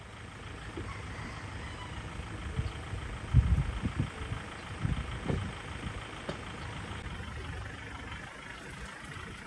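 A Ford Ranger pickup's engine runs steadily at idle, with a few low thumps about three to five and a half seconds in.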